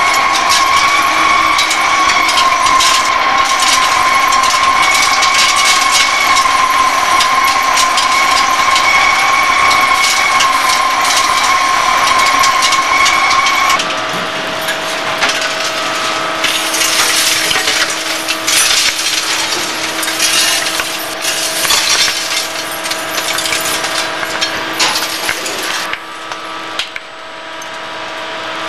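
Hegenscheid 105 underfloor wheelset lathe turning a railway wheel: a steady machine whine under a dense crackle of metal chips breaking off and falling. About 14 seconds in the whine changes abruptly to a lower pitch.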